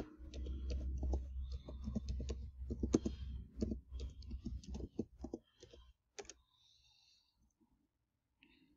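Typing on a computer keyboard: a quick run of keystrokes for about five and a half seconds, then a few single clicks before it stops.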